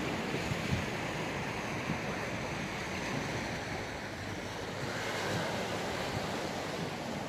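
Small sea waves washing and breaking against a low rocky shore, a steady rush of surf, with wind on the microphone.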